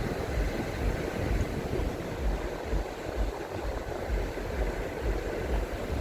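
Wind buffeting the microphone in uneven gusts, a steady low rumbling noise with no clear tone.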